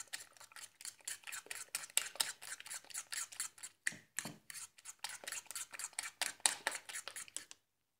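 Eggs being beaten by hand with a metal utensil in a ceramic bowl: quick clicking, scraping strokes, several a second, that stop shortly before the end.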